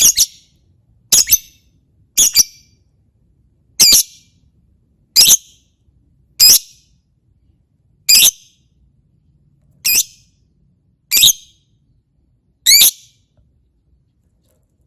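Lovebird giving shrill, high-pitched calls, single or in quick pairs, about ten in all, one every second or so, falling silent near the end.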